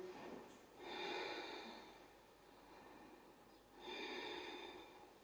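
A woman breathing slowly and audibly: two faint breaths, each about a second long, about three seconds apart.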